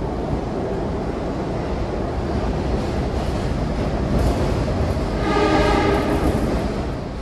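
Interior of a moving SEPTA Broad Street Line subway car: a steady running rumble and rail noise. A brief pitched whine rises over it about five seconds in.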